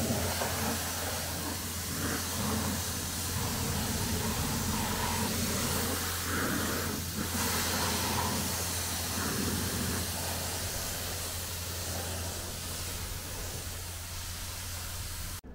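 Pressure washer spraying water on a car: a steady hiss over the constant low hum of the machine's motor, cut off abruptly near the end.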